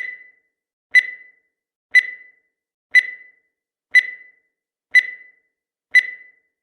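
Countdown timer's sound effect: a short, high beep once a second, each dying away quickly, seven in a row.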